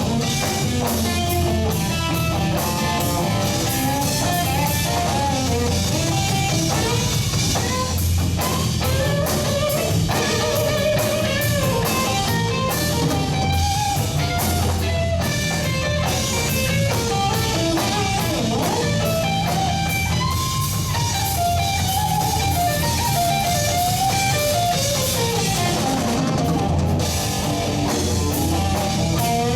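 Live blues band playing a slow song: electric guitar carrying the melody over a drum kit and low sustained bass notes.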